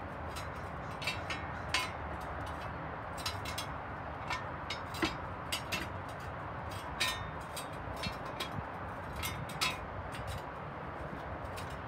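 Scattered light clinks and knocks, about fifteen at irregular intervals, from tools and metal parts being handled during an oil change, over a steady low hum.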